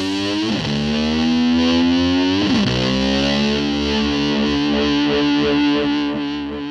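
Distorted electric slide guitar imitating a motor scooter: two quick swoops down and back up in pitch, then a long held note that wavers and begins to fade near the end.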